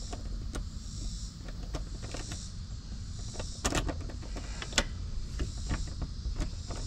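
Irregular short metallic clicks of a wrench working a hardtop latch bolt as it is tightened, over a steady low background rumble. Two of the clicks, about four and five seconds in, are louder.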